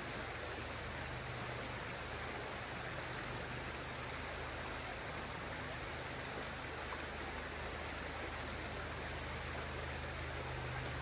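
Small trout stream running steadily: an even, unbroken hiss of moving water.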